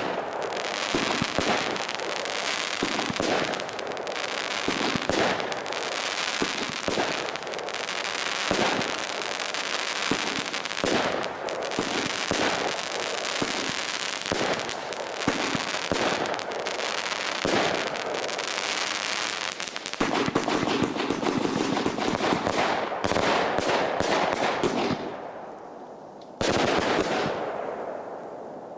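Startrade Feuerzauber XL compound fireworks battery firing: a rapid run of shots and bangs, then a stretch of dense crackling that dies away about 25 seconds in, before a loud new volley starts abruptly a second later.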